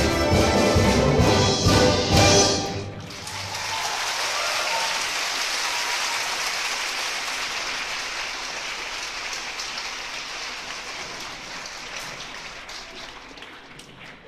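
Live string quartet and orchestra playing a lively Irish tune with strong, even beats, which ends about two and a half seconds in. Audience applause follows and slowly fades away.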